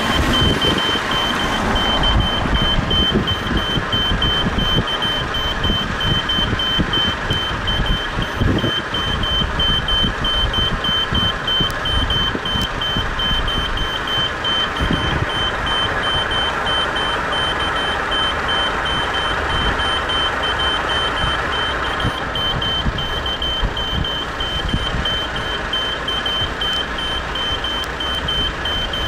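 Railroad crossing warning signal beeping rapidly and evenly in one high-pitched tone, sounding for an approaching train. A steady low rumbling noise runs underneath.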